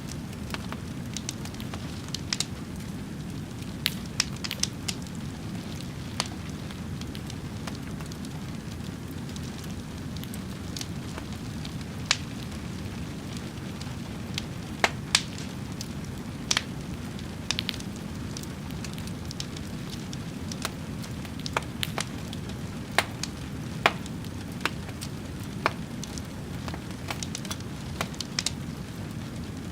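Wood fire crackling: a steady low rushing sound with irregular sharp pops and snaps scattered throughout.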